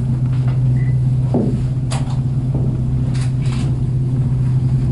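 Alyeska aerial tram cabin travelling along its cables: a steady low hum over a rumble, with a few faint knocks.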